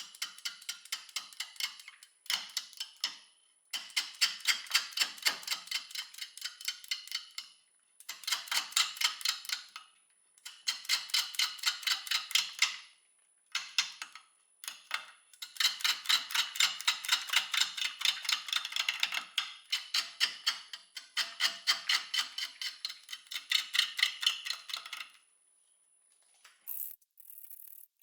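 Bowl gouge roughing an out-of-round, freshly cut wet maple blank on a wood lathe, knocking against the high spots about four times a second, once per turn of the blank, in several cutting passes with short pauses between. The wood is not yet round, so the tool bounces on the heavy, wet blank.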